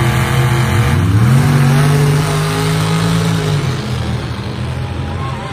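Pickup truck engines revving as the trucks accelerate away. The engine note climbs about a second in, holds, then drops and fades as they pull away.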